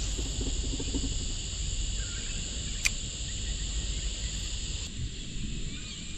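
Steady high-pitched insect chorus from the bushland, over a low rumble, with one sharp click about three seconds in.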